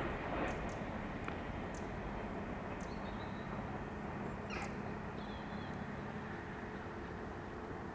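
A CrossCountry Voyager diesel unit running away into the distance, heard as a steady low engine hum. Several short, high bird chirps and trills come over it.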